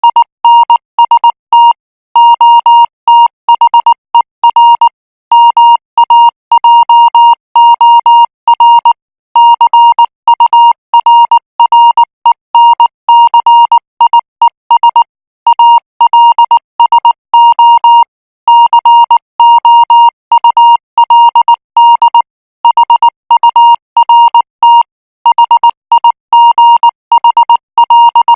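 Morse code practice signal sent at 18 words per minute: a single high-pitched beep keyed on and off in short and long elements (dots and dashes), with brief gaps between letters and longer ones between words.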